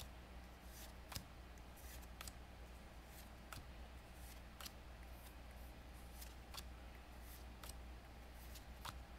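Faint, soft clicks at uneven intervals as trading cards are handled and flipped one by one, over a low steady hum.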